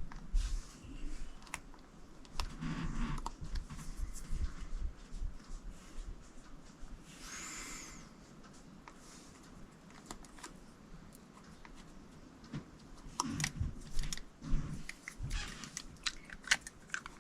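Faint, scattered taps, clicks and light rustles of hands placing small paper flower embellishments on a paper craft box, busier in the last few seconds, with a brief soft hiss about halfway.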